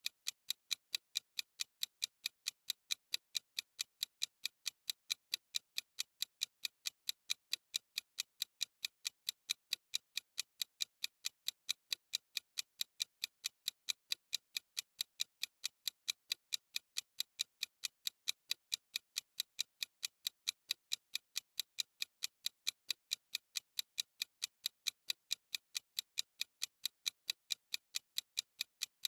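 Clock-style ticking sound effect of a countdown timer: crisp, even ticks several times a second, steady throughout.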